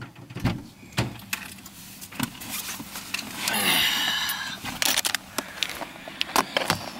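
Clicks, knocks and rustling inside a car as a person moves about in the driver's seat: clothing brushing and things being handled, with a longer rustle about halfway through.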